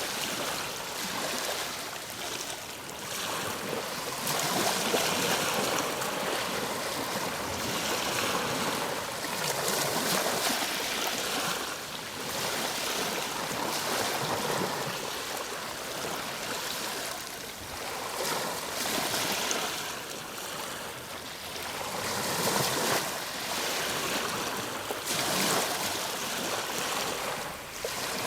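Ocean waves breaking and washing on a shore, a continuous rushing surf that swells and ebbs every few seconds.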